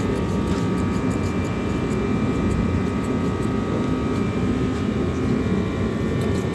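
A motor running steadily, with a constant low hum and a thin, even whine over it.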